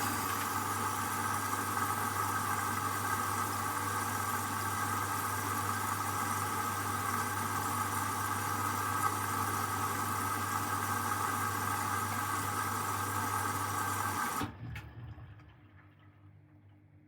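Hoover washing machine taking in water through its inlet valve: a steady rush of water with a low electrical hum, which cuts off suddenly near the end as the valve closes, the refill during the main wash.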